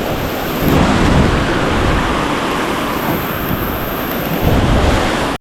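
Ocean surf washing on the beach, with wind buffeting the microphone as a heavy low rumble; the sound cuts out abruptly at the very end.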